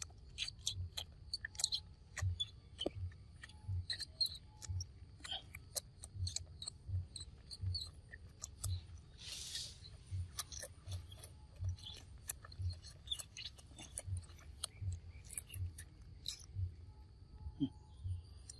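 Long-tailed macaque licking and chewing at a plastic snack packet: a run of quick smacking clicks, with a half-second burst of wrapper crinkle about halfway through. Under it a soft low thump repeats about every two-thirds of a second.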